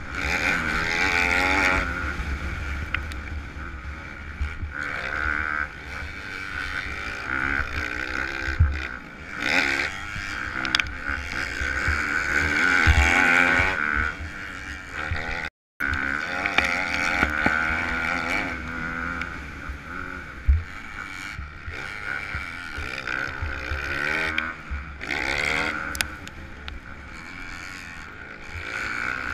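Kawasaki KX250F single-cylinder four-stroke motocross engine heard from the rider's own helmet camera, revving up and down through the gears under race load, with wind noise and occasional thumps. The sound cuts out for a moment about halfway.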